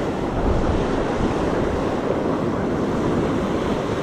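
Ocean surf washing up the beach with wind buffeting the microphone: a steady, even noise with no distinct strikes.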